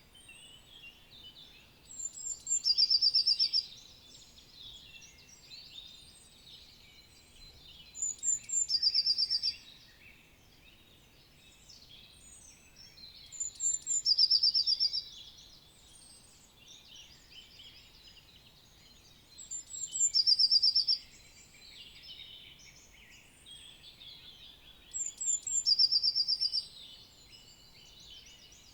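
Woodland dawn chorus of songbirds chirping and singing. One nearby bird sings a short song five times, about every six seconds: a couple of high notes, then a fast even trill.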